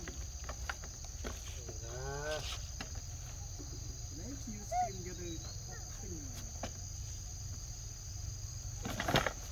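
Steady high-pitched drone of insects, with short squeaky calls from monkeys breaking in several times and a brief knock near the end.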